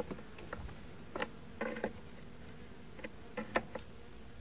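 Honeybees buzzing around an open hive, a steady low hum, with several short wooden knocks and scrapes from hive frames being handled.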